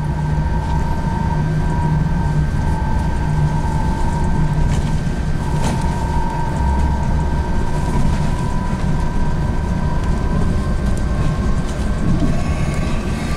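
KAMAZ-6282 electric bus under way, heard from inside the cabin: a steady electric drive whine over road and tyre rumble. The whine rises a little in pitch near the end as the bus picks up speed.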